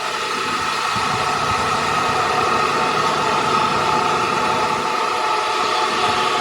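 Heavy machinery running steadily: a loud mechanical rumble with a held whine on top.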